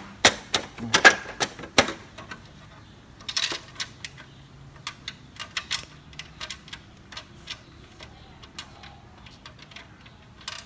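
Plastic clicks and snaps from a copier's cover panel and parts being pressed and fitted into place by hand: a quick run of loud clicks in the first two seconds, then scattered lighter clicks.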